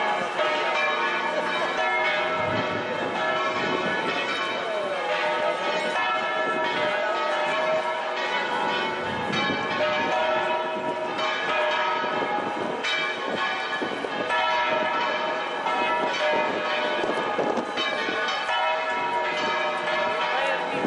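Church bells ringing in a continuous peal, many bell tones overlapping, over the murmur of a large crowd.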